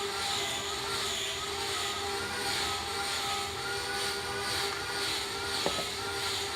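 CNC wood lathe running: a steady machine whine with a hiss that swells about once a second, and a single sharp click near the end.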